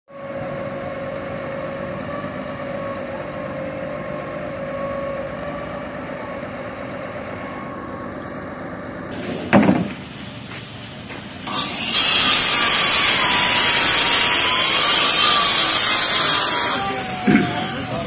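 Truck-mounted concrete pump running with a steady hum and a whining tone. About halfway through there is a loud thump, then for about five seconds a much louder, high hissing noise that cuts off suddenly.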